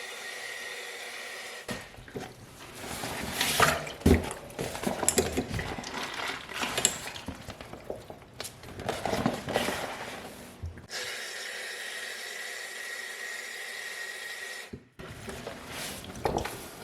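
Tap water running into a dry bag full of towels in a sink, with irregular splashing and sloshing that come and go. Steady hiss stretches break in at the start and for a few seconds late on.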